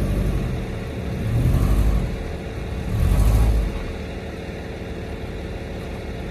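Subaru Forester's engine revving in three surges about a second and a half apart as it climbs the tilted steel bed of a rollback tow truck, then running steadily at low revs once the car is up on the bed.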